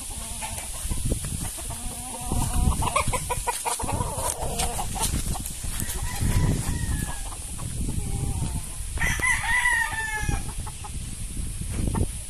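Roosters calling in a yard: clucking calls early on and one clear, drawn-out crow about nine seconds in.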